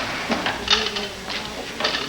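A few scattered clicks and knocks, about four in two seconds, over faint voices in the room.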